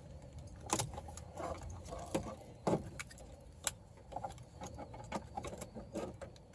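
Scattered light clicks and rattles of plastic parts as the tabs of a car's steering-column multifunction switch are released and the old switch is worked out. The sharpest clicks come a little under a second in, near three seconds and near four seconds in, over a faint low hum.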